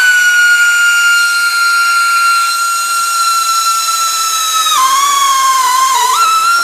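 Air ratchet running a nut down on a rock-slider bolt: a steady high whine with hissing air. About five seconds in the pitch drops as the tool loads up on the fastener, then climbs back again.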